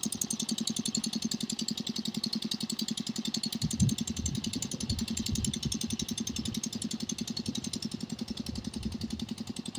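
Hand tractor's single-cylinder diesel engine running under load with a rapid, even chugging as it drags a levelling board through the paddy mud. A few low thumps come about four to five seconds in.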